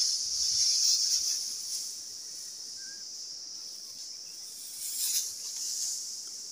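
Steady, high-pitched chorus of insects chirring, with a brief rustle of dry rice straw being handled about five seconds in.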